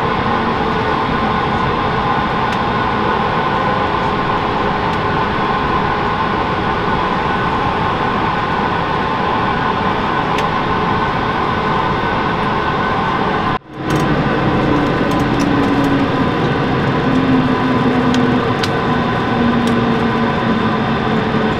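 Cabin noise inside an Airbus A220-300 taxiing after landing: a steady rush of engine noise from its Pratt & Whitney PW1500G geared turbofans, with a few held tones. It cuts out for a moment about 14 seconds in and comes back with a low hum that slowly falls in pitch.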